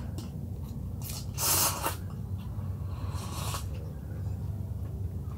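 A person eating instant cup noodles, making two loud airy mouth sounds: the louder one about a second in, and a shorter one just after three seconds.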